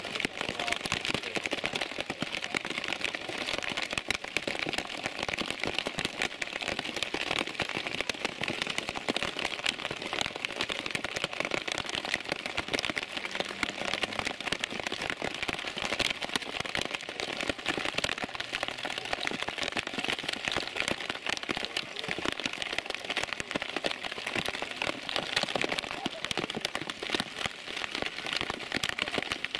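Heavy rain falling, a dense, steady patter of countless drops striking close by.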